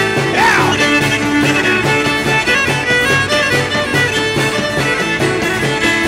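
Live band playing an instrumental break in a rollicking Irish folk song, a fiddle leading over a steady rhythmic string and percussion backing.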